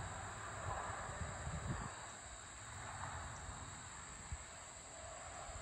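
A steady, high, even chorus of field insects, with low, uneven wind rumble on the microphone that is strongest in the first couple of seconds.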